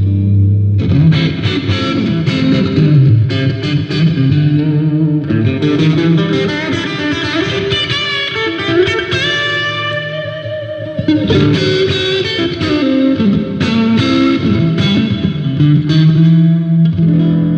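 Rock band playing an instrumental intro live, led by electric guitar through effects, with shifting chords and melody lines and no singing yet.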